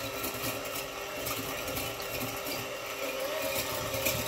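Electric hand mixer running steadily, its whisk beating a thin liquid mixture in a glass bowl.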